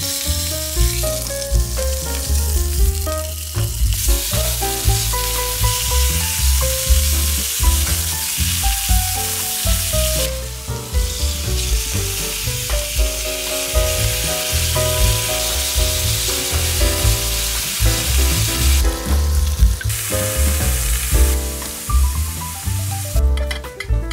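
Pork belly sizzling as it fries in oil in a nonstick pan, a steady hiss that stops shortly before the end. Background music with a bass line plays under it.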